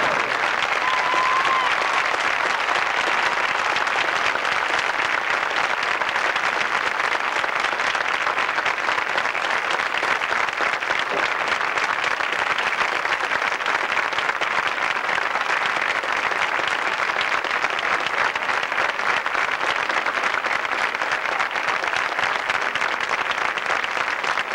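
Stadium crowd applauding steadily for a marching band at the end of its performance.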